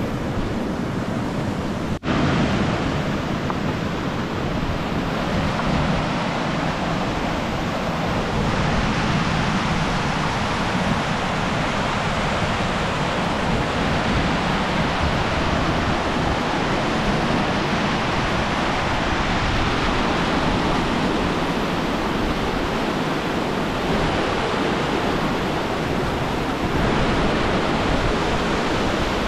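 Steady rushing of a mountain stream, an even roar of water, with a brief dropout about two seconds in.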